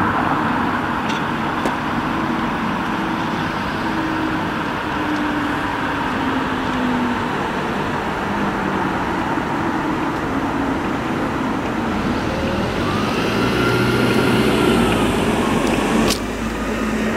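Steady road traffic noise on a city street, with a passing vehicle's engine whose pitch falls slowly over the first several seconds. A sharp click near the end.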